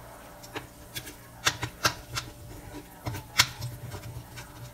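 Metal tongs clicking and scraping against a stainless steel pan, in a run of irregular sharp taps, with the loudest about three and a half seconds in.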